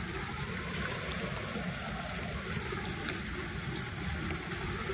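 Water gushing and churning steadily through a mesh harvest net and around a plastic crate at a shrimp pond's outflow, as a constant rushing noise.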